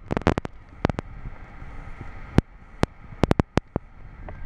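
A putter striking a golf ball on a wet green, among about a dozen scattered sharp taps, over a steady hiss of wind and rain on the microphone.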